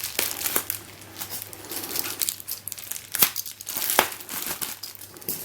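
Packaging crinkling and tearing as it is opened by hand, with a few sharp clicks.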